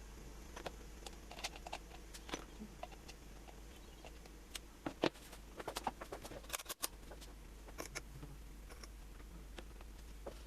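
Irregular light clicks, taps and scrapes, as of small parts being handled and worked, loudest in a cluster around the middle, over a steady low hum.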